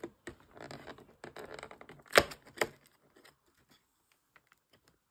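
Fingernails scratching and tearing at the perforated cardboard door of a chocolate advent calendar, with two sharp snaps a little after two seconds in, then a few faint ticks.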